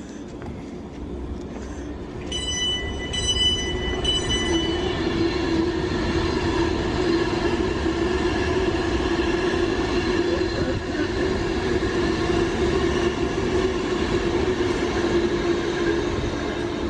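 A passenger train running at the platform: its sound swells from about two seconds in and then holds as a steady hum. A high-pitched squeal is heard for a couple of seconds, between about two and five seconds in.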